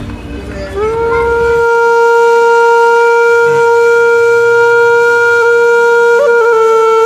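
Background music: one long held note on a wind instrument, sliding up into pitch about a second in and then holding steady, with a brief waver near the end.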